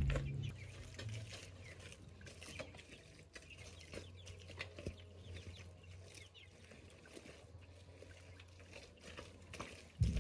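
Chickens clucking, among scattered short sharp taps and clicks, over a faint steady low hum.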